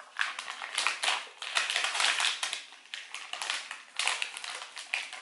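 A foil-lined Takis chip bag crinkling and rustling as it is squeezed and shaken, tipping crushed chips out into a plastic container, in repeated bursts of crackling.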